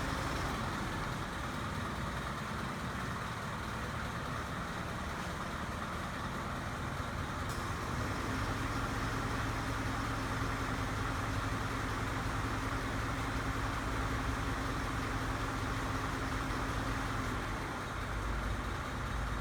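Tow truck's engine idling steadily, a constant low hum with no siren sounding.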